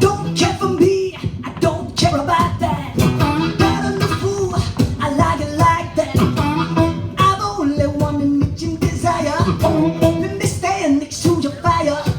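Live blues played on harmonica and acoustic guitar: the harmonica wails and bends notes over steady, percussive guitar strumming in an instrumental passage.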